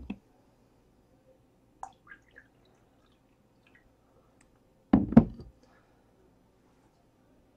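Mostly quiet room with a few faint clicks, then a short double thump about five seconds in, the loudest sound here.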